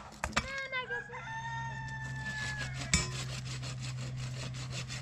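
A rooster crows once, one long call of about two seconds that climbs at the start and dips at the end. Sharp axe blows on wood land just before the crow and again about three seconds in.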